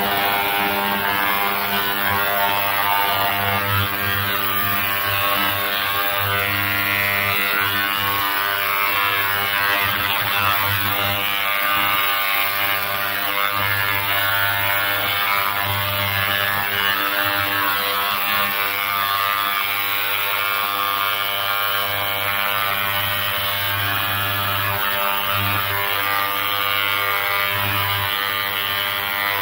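Ultrasonic cleaner bath running, a steady loud buzz with a hiss over it, as it sonicates carbon nanotubes dispersed in epoxy resin.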